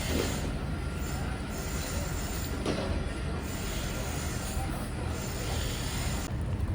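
Steady low rumble of heavy vehicles with a couple of brief squeals.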